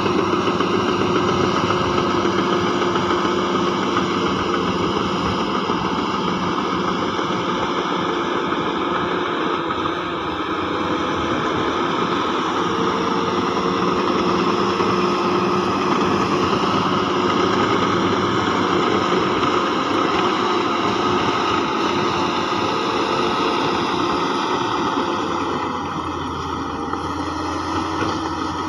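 Heavy diesel engine of earth-moving machinery running steadily, its pitch shifting slightly and its level dipping briefly twice.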